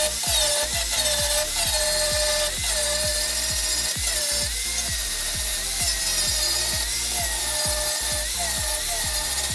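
Background electronic music with a steady thumping kick beat and a gliding synth melody.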